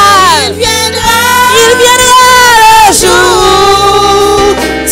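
Women singing a French gospel hymn into microphones, in long held notes with vibrato over a steady low instrumental accompaniment; one phrase ends and a new one starts about three seconds in.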